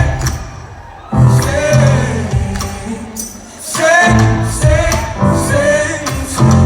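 Live band music with several voices singing together over pulsing bass notes, in loud phrases with softer dips between them.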